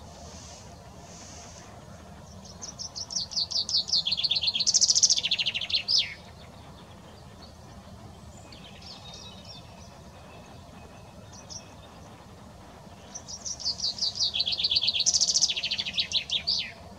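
Male common chaffinch singing its song twice, each phrase a rapid run of notes stepping down in pitch and ending in a quick flourish.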